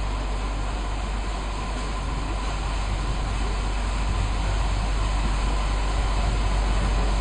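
Steady low rumble with an even hiss over it, with no distinct separate sounds standing out.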